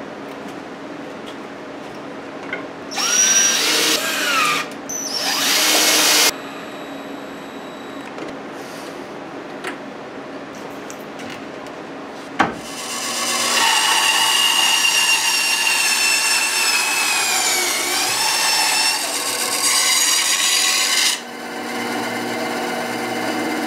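Benchtop bandsaw running with a steady hum, its blade cutting wood. There are two short cuts about three and five seconds in, then a long cut from about thirteen to twenty-one seconds, carrying a whining tone that dips and rises again near the end.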